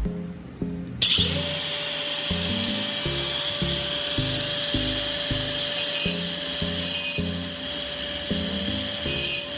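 A power tool switched on about a second in and running steadily with a grinding hiss and a constant whine, over background music with a beat.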